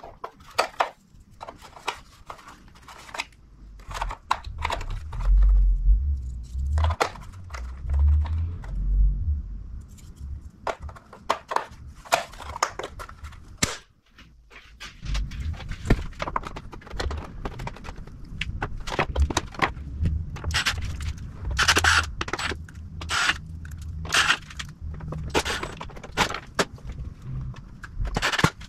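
Clicks, knocks and scrapes of hands and hand tools working on a motorcycle's plastic fairing and GPS mount, with stretches of low rumble.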